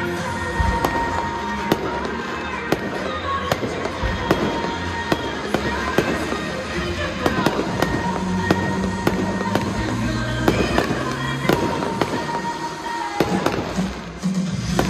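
Aerial fireworks bursting in a quick, irregular run of bangs over music.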